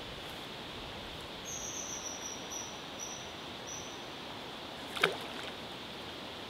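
A carp rod swishing once through a cast, a single sharp whoosh that drops quickly in pitch about five seconds in, over a steady outdoor hiss. Earlier, a small bird gives a short series of high thin notes.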